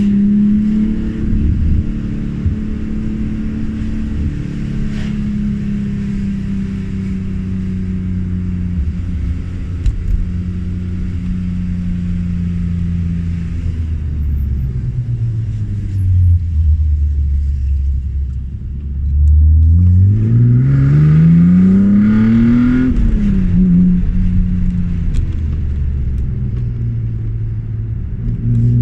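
BMW E36 M3's straight-six engine driving, its pitch easing slowly lower for most of the time, then the revs climb hard for about three seconds under acceleration, drop suddenly at a gear change about two-thirds of the way through, and the engine pulls on in the next gear.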